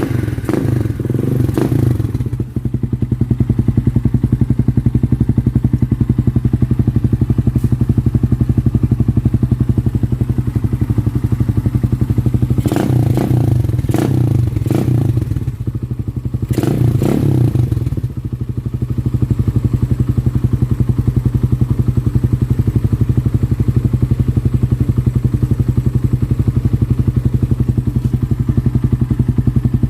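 Suzuki Raider 150 single-cylinder motorcycle engine idling through an Apido exhaust pipe packed with steel wool. The throttle is blipped briefly about a second in and twice around the middle, each time settling back to a steady idle.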